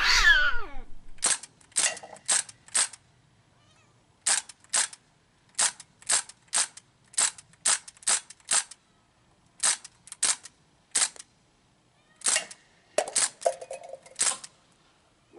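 Crosman DPMS SBR CO2 BB rifle firing semi-auto, with blowback action: about two dozen sharp pops, fired in quick strings of two to six shots with short pauses between. A short falling whine right at the start.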